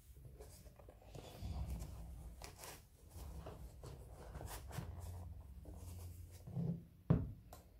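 Gloved hands handling a coated-canvas cosmetic pouch and working a fabric liner into it: soft rustling and scuffing with small clicks, and one sharper knock near the end.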